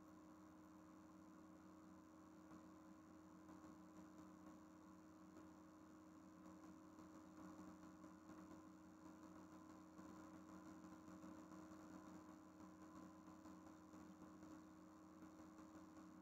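Near silence: a faint steady hum in the recording, with no other sound.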